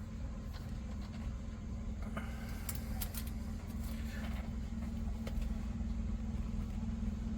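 A steady low machine hum runs throughout. Over it, a few small clicks and short scrapes come between about two and four seconds in as a plastic NMEA 2000 cable connector is worked into a T-connector.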